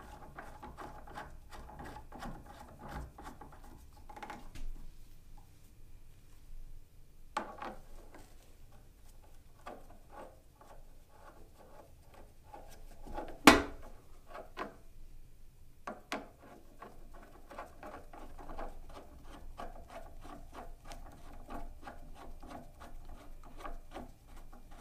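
Steel feed handles being screwed by hand into the feed hub of a Porter-Cable PCB660DP floor drill press: metal threads rubbing and scraping, with scattered small clicks and one sharp knock about halfway through.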